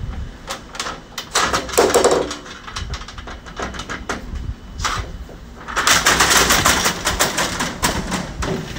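Accordion hurricane shutter panels rattling and clicking as they are pushed along the track and fastened shut. There are two bursts of clatter, a short one near the start and a longer one about six seconds in, with single clicks between.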